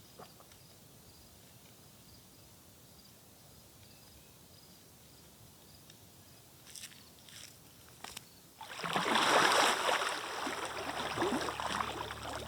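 Quiet outdoor background with a few light clicks, then from about nine seconds in a loud rushing slosh of water that carries on.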